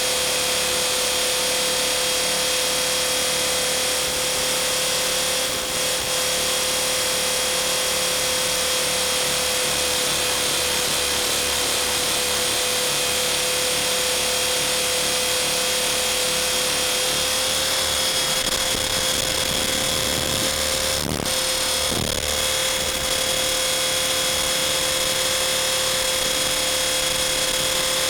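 Blade 450 3D electric RC helicopter's motor and rotor running steadily: a constant high whine over a dense mechanical hiss, with a brief wobble about twenty-one seconds in.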